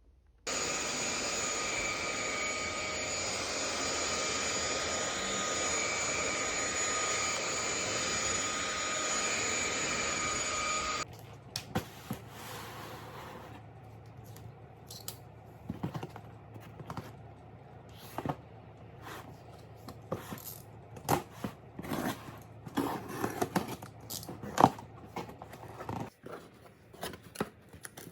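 A steady whirring machine noise with a few constant tones in it, which cuts off suddenly about eleven seconds in, followed by scattered clicks and knocks.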